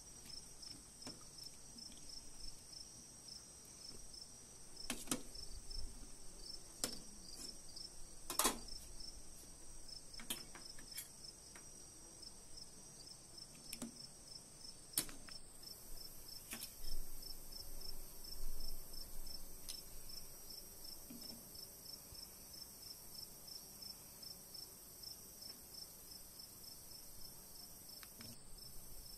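Crickets chirping steadily in a fast, even pulse, with a few sharp clinks from a metal ladle knocking a stainless steel cooking pot while mushrooms are stirred in broth.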